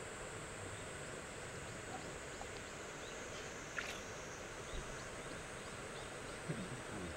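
A steady, high-pitched insect buzz over quiet outdoor background noise, with a few faint short chirps and a soft click about four seconds in.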